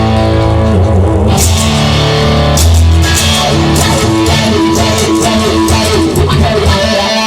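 Instrumental rock music with guitar, bass and drums. The bass drops out right at the end.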